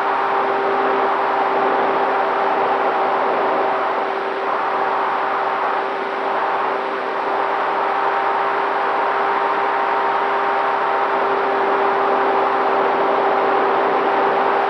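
Onboard sound of a Dynam T-28 Trojan RC plane in flight: its electric motor and propeller hold a steady whine over a rush of wind noise.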